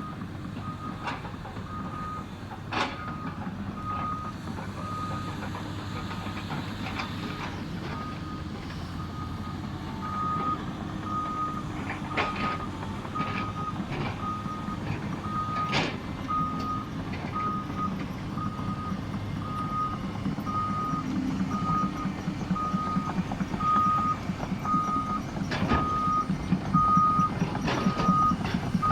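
A heavy earthmoving machine's backup/travel alarm beeping steadily, about once a second, over a diesel engine running under load. Occasional sharp metal clanks break through, and the engine grows louder toward the end.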